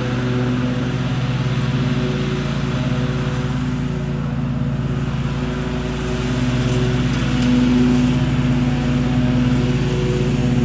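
Lawn mower engine running steadily while cutting grass, a continuous drone.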